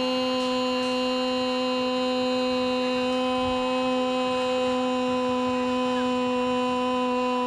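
A steady hum-like tone holding one unchanging pitch with its overtones, at a constant level throughout.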